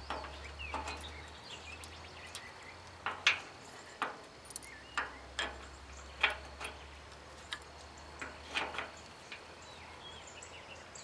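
Irregular metal clicks and taps, about a dozen, as a bolt and nut are fitted and threaded by hand into the steel frame of a vintage Allis-Chalmers side delivery hay rake.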